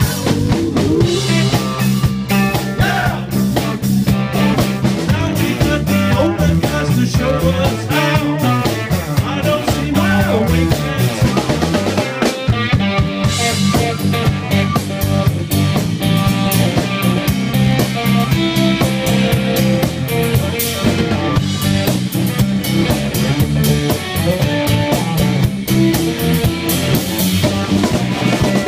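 Live rock trio of electric guitar, electric bass and drum kit playing a country-rock song, drums keeping a steady beat under the guitar.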